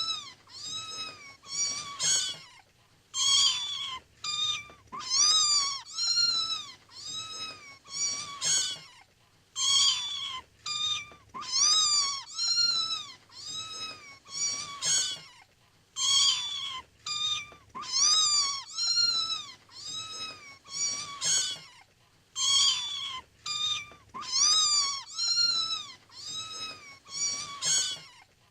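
Kittens meowing over and over: high-pitched calls that each rise and fall in pitch, about one or two a second with short gaps between.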